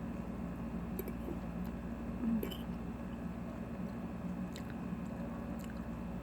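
Close-up chewing of a mouthful of chopped kale salad, with a few faint crisp crackles, over a steady low hum.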